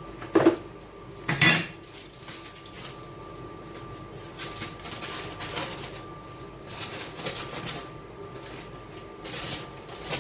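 Two sharp knocks about half a second and a second and a half in, then short bursts of snipping and rustling as kitchen scissors cut.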